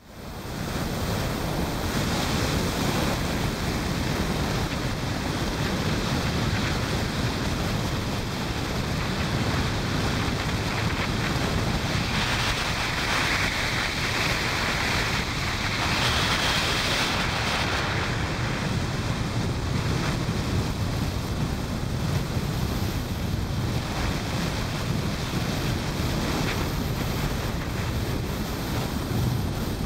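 Wind rushing over the microphone of a camera on a moving motorcycle: a steady, loud rush with low road and engine rumble beneath, hissing more strongly around the middle.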